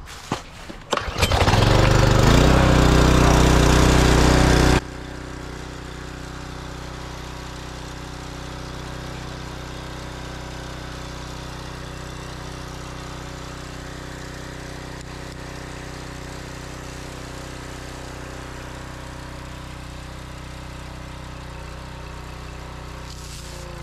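Kohler single-cylinder engine on a Simpson gas pressure washer, pull-started on choke: a brief tug of the recoil starter, then it catches about a second in and runs loud and steady. About five seconds in the sound drops suddenly to a much lower level, and the engine keeps running steadily.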